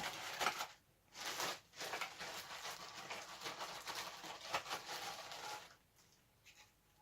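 Packaging being handled and pulled open: irregular rustling and tearing in three stretches, the longest lasting about four seconds, then stopping.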